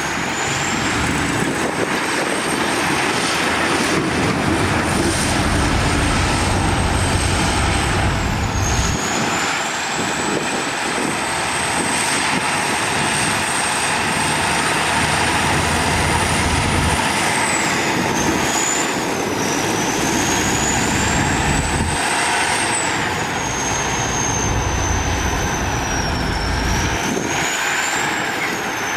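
Heavy diesel earthmoving machinery working, its low engine rumble swelling and easing in spells of several seconds. Over it runs a high whine that climbs slowly and drops back sharply several times.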